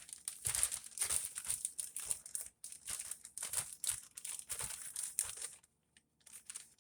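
Hot frying oil on high heat, sizzling and crackling in the pan, a sign it is at frying temperature. The crackle drops out briefly near the end.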